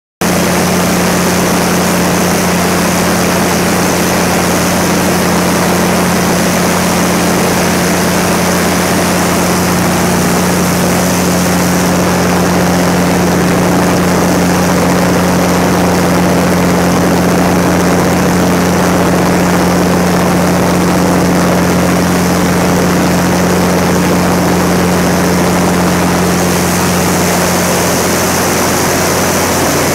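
Cummins NTTA855 turbocharged six-cylinder diesel engine of a 350 kW standby generator set running steadily, with a strong even hum; its main note shifts slightly lower near the end.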